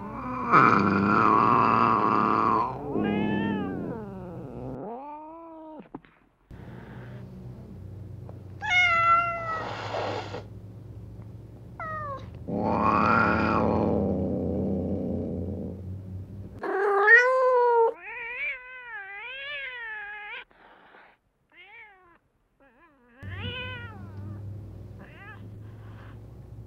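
Domestic cats meowing and yowling, one call after another. Long, drawn-out yowls alternate with shorter meows, and one call wavers up and down in pitch.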